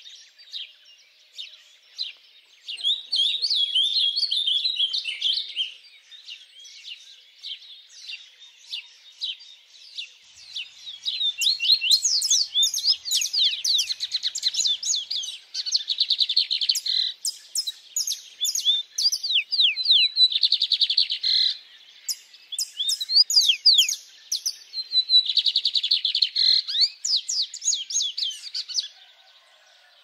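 Brazilian wild songbirds singing in rapid, high twittering phrases and trills: one phrase about three seconds in, scattered notes, then near-continuous song from about eleven seconds in until just before the end.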